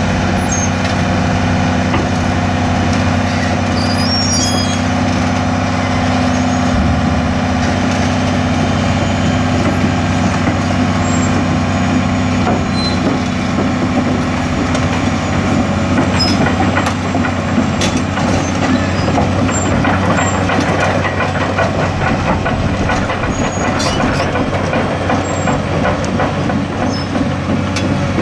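Case CX330 excavator's Isuzu six-cylinder turbo diesel running steadily, with metallic clanking and squealing from the machine as it moves. The clatter gets busier from about halfway on.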